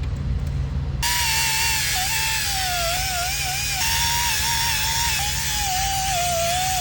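A small high-speed power tool, likely a rotary sander or grinder used in rim repair, starts about a second in and runs with a steady whine. The whine wavers and dips in pitch as if loaded against the work.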